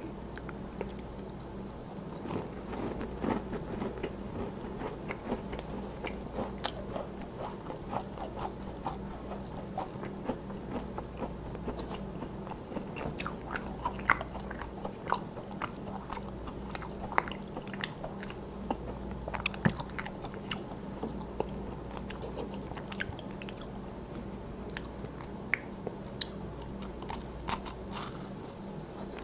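Macarons being chewed and bitten, close to a clip-on microphone: crisp meringue shells crunching and crackling in many small irregular clicks, with a fresh bite into another macaron near the end. A steady low hum lies underneath.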